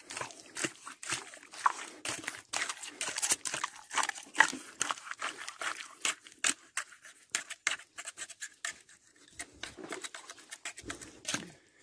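Wet mangrove mud crackling and popping: a rapid, irregular run of small sharp clicks that thins out over the last few seconds.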